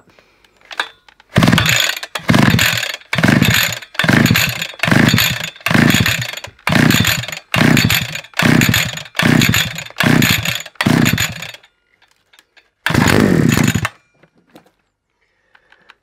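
SGS 52cc two-stroke strimmer engine being cranked on choke with its recoil pull-cord: about a dozen quick pulls, each a short whirring spin-up. After a pause, one more pull near the end brings a brief cough as the engine fires, the sign it is ready to be switched to run.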